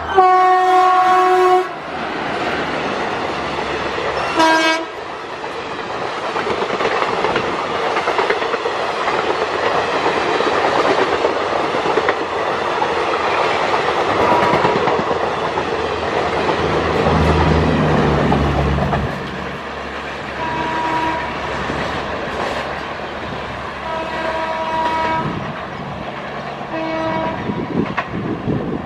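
WAP4 electric locomotive sounding a long horn blast and then a short toot as it approaches, followed by its Garib Rath coaches rumbling past with wheels clacking over the rail joints. In the last part, a second train's horn, lower in pitch, gives three short blasts as it approaches.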